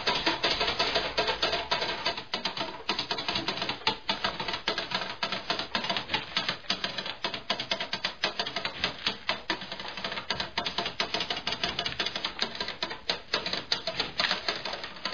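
Rapid, irregular clicking and rattling of a cat exercise wheel turning as a cat runs in it, over music. It stops abruptly at the end.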